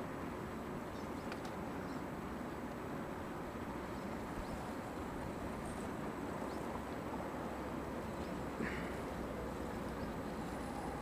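Electric RC rock crawler with two Novak Fifty Five motors on its axles, driving slowly over rocks: a steady, even drone from the motors and gearing with a few faint clicks.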